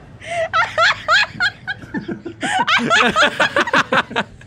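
A woman and a man laughing hard together, the woman's laugh high-pitched and in quick pulses, with the man's lower laugh joining about two seconds in.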